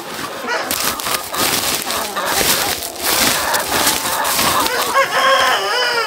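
A large flock of chickens calling and clucking, with many sharp clicks and knocks through the middle and a run of repeated squawking calls near the end.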